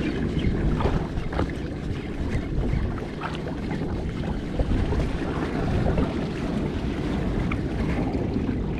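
Wind buffeting the microphone on a small boat at sea: a steady low rumble with water washing around the hull and a few short knocks.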